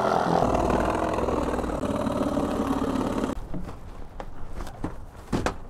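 Cordless power saw cutting through a thick cardboard box, its motor running steadily under load until it stops a little over three seconds in. A few light knocks and cardboard rustles follow near the end.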